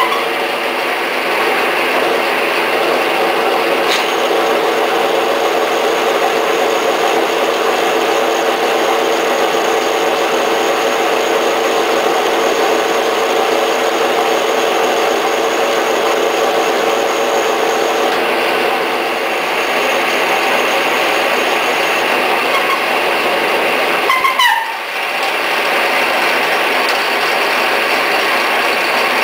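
Vintage Lindgren drill press running steadily, its motor and open gearing giving a continuous mechanical hum. The sound shifts a little after about 18 seconds, and there is a brief sweeping disturbance about 24 seconds in.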